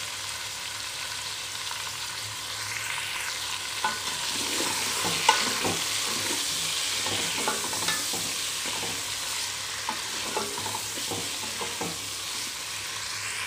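Chicken pieces and onions sizzling in hot oil in a metal pot, with a steady hiss. From about four seconds in, a wooden spoon stirs them, scraping and knocking against the pot in scattered clicks.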